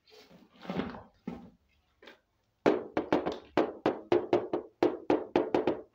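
Hollow plastic toy elephant knocked repeatedly on a tabletop: a short rustle, then a quick run of sharp taps, about four a second, for the last three seconds.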